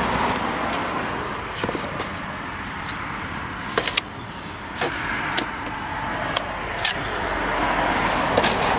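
Steel hand trowel scraping and clicking against mortar and brick while the back of a brick corner is filled with mortar: a scatter of short sharp scrapes and clicks. Under it a steady rushing background noise rises and falls.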